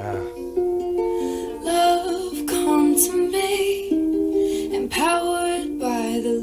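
Ukulele fingerpicked in flowing arpeggios that sound almost like a harp.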